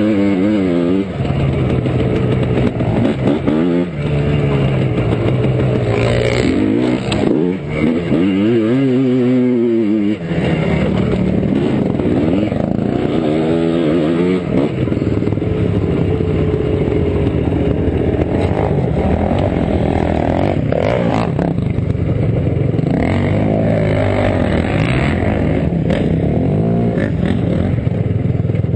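ATV engine under hard riding, its revs climbing and dropping again and again, most busily in the first third and again near the end.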